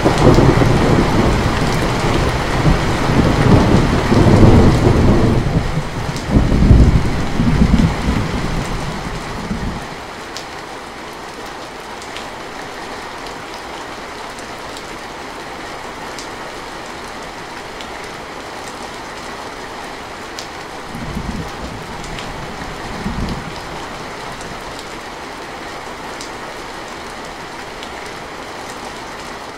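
Heavy rain on a metal roof, a steady hiss with scattered drop ticks, under a long rolling rumble of thunder that dies away about ten seconds in. Two short, fainter rumbles of thunder follow about halfway through.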